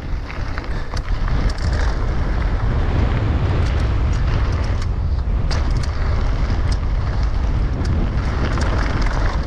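Wind buffeting the microphone during a fast mountain bike descent, over the rumble of tyres rolling on a hardpacked dirt trail, with scattered clicks and rattles from the bike.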